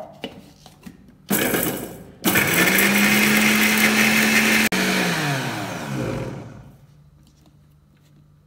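Electric kitchen mixer grinder chopping ginger and green chillies: a short pulse, then a steady run of about two and a half seconds with a brief break. It is then switched off and the motor winds down with a falling whine.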